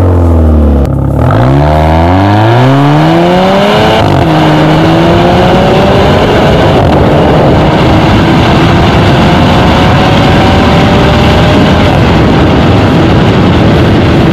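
Volvo S90 with a modified Y-pipe exhaust pulling away from a standstill: the exhaust note dips for about a second, then climbs as the car accelerates. It drops sharply with a gear change about four seconds in, then climbs slowly in the next gear under rising wind and road noise.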